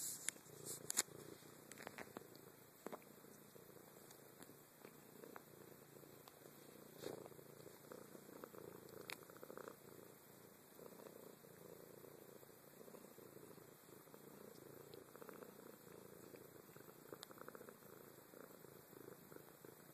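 A cat purring softly and steadily at close range, with a couple of sharp clicks in the first second.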